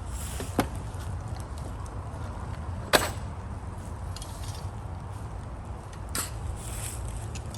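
A loud sharp knock about three seconds in, with a fainter click before it and a smaller knock near the end, over a steady low rumble.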